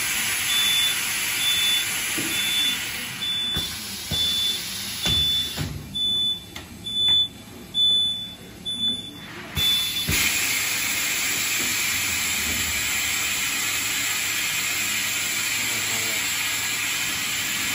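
Vacuum compression packing machine for pillows and bedding working through a cycle: a steady hiss of air, with a short electronic beep repeating a little more than once a second for the first ten seconds. Midway the hiss thins out and a series of sharp knocks sound; the full hiss returns near the end.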